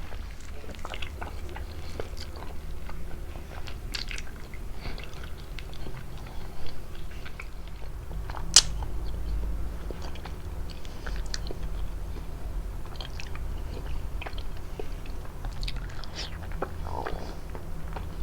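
Close-miked biting and chewing of prickly pear fruit: soft wet mouth sounds with scattered short crunchy clicks, one sharp click about halfway through.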